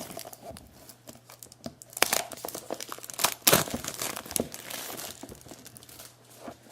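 Plastic shrink-wrap being torn and peeled off a product box, crinkling in irregular bursts, loudest about two and three and a half seconds in and dying down near the end.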